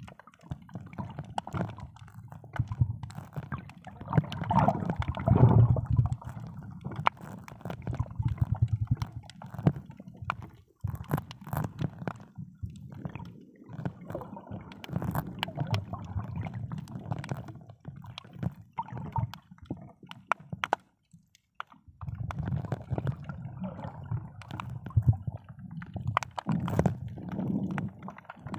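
Water gurgling and sloshing, heard muffled from underwater, with scattered faint clicks. It dips to a brief lull about two-thirds of the way through.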